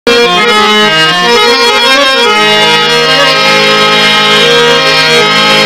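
Harmonium playing an instrumental introduction to a Rajasthani folk song: a melody over held low notes.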